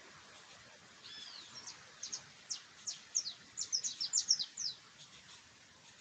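A songbird singing: one arched whistle about a second in, then a quick run of high, sharp, down-slurred notes that comes faster and stops a little before the end.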